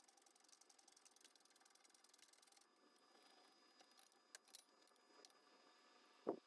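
Near silence with faint clicking, then a sharp knock and a smaller one just after it about six seconds in, like metal parts being handled.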